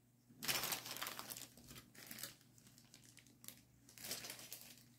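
Clear plastic bag holding plastic model-kit sprues crinkling as it is handled, loudest in the first second, then fainter rustles on and off.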